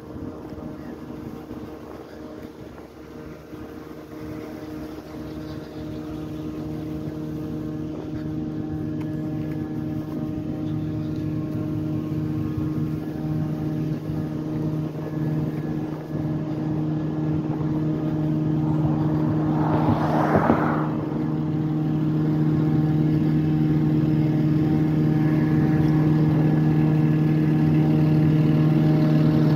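A parked utility truck's engine running at a steady idle, getting steadily louder as it is approached. About twenty seconds in a brief rush of noise rises over it.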